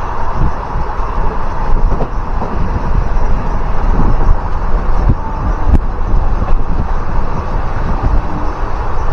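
Passenger train running at speed, heard from inside the coach: a steady rumble of wheels on the rails with frequent short knocks, and wind noise on the microphone.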